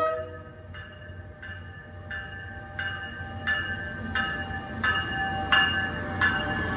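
A New Jersey Transit train's bell ringing steadily, a stroke about every 0.7 seconds, growing louder as the train approaches, over a low rumble. The tail of a horn blast cuts off at the very start.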